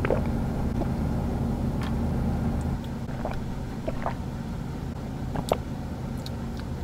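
Steady low hum inside the cabin of a running car, with a few faint clicks.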